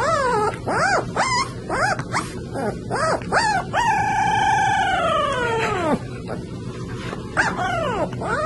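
Puppy howling: a quick run of short rising-and-falling yelps, then one long howl of about two seconds that sinks in pitch as it ends, and a couple more short yelps near the end.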